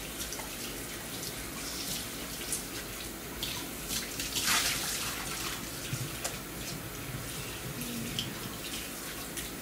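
Kitchen faucet running into a stainless steel sink while a dish is rinsed by hand under the stream, water splashing off it. A louder splash comes about four and a half seconds in.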